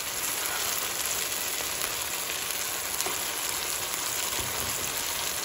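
Chopped tomatoes and onion sizzling in hot oil in a frying pan, a steady hiss with scattered small crackles.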